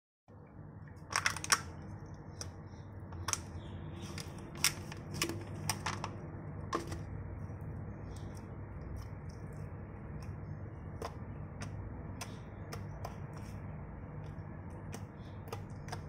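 Homemade slime being handled, giving scattered sharp clicks and pops, most of them in the first seven seconds and fainter after, over a steady low hum.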